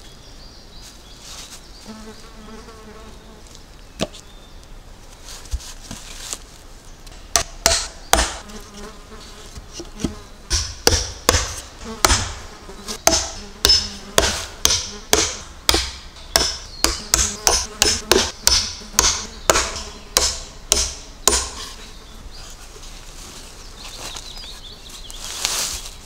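A hammer striking a wooden plank laid across log posts, fixing it in place, in a long run of sharp blows about two a second that starts a few seconds in and stops a few seconds before the end. A fly buzzes close by now and then.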